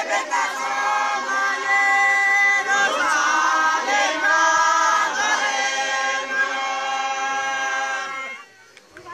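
A choir of men singing a hymn of praise unaccompanied in a local language, several voices together holding long notes. The singing stops about eight and a half seconds in.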